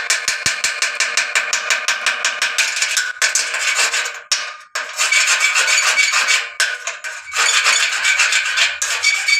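Electric arc welding on thin 1.6 mm square pipe: a crackling arc, rapidly pulsing at first, then running in stretches broken by brief stops a little past four seconds and near seven seconds.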